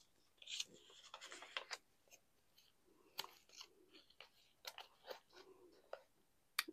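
Faint rustling and crinkling of small, old paper letters as gloved hands sort them and unfold one, in short scattered crackles with a sharper tick near the end.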